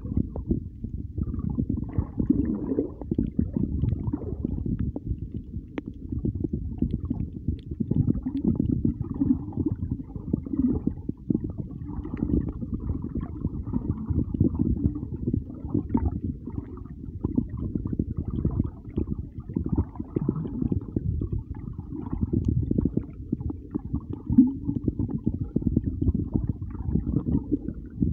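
Muffled underwater sound from a submerged camera microphone: a continuous low rumble of moving water with gurgling now and then.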